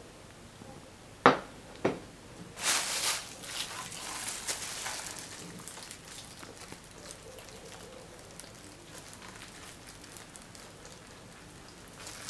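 Two sharp knocks about a second in, then the crinkling and rustling of a plastic bag being handled and squeezed as a sour cream and mayonnaise mix is piped out in a mesh, loudest at first and fainter after.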